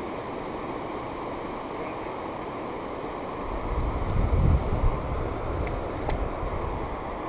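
Wind buffeting the microphone over a steady outdoor hiss, with a stronger gust rumbling from about three and a half seconds in. A few faint ticks follow soon after.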